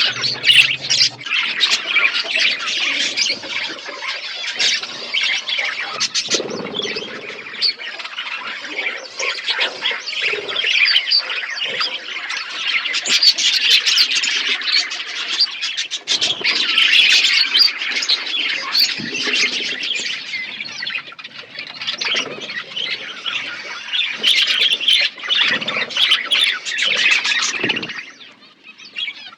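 A flock of budgerigars chattering, with many overlapping chirps and squawks. The chatter thins out near the end.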